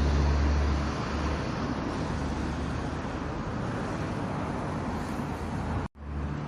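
Steady outdoor background noise, a low rumble with an even hiss, heavier in the first second; the sound cuts out for an instant about six seconds in.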